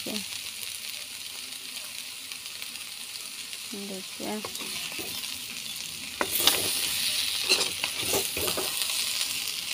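Mixed vegetables sizzling in hot oil in a pan, stirred with a few knocks against the pan. The sizzle grows louder about six seconds in.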